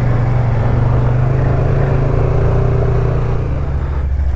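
ATV engine running steadily at a fast idle, its note settling lower about three and a half seconds in.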